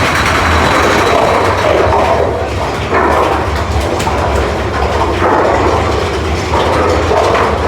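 Mine-train roller coaster rattling and rumbling along its track at speed, with the clatter swelling and easing every second or two as the cars jerk through the turns.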